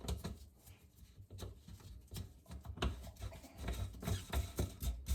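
Plastic nut being hand-screwed onto the threaded body of a push-button sink drain: irregular small clicks and rubbing of plastic threads and fingers.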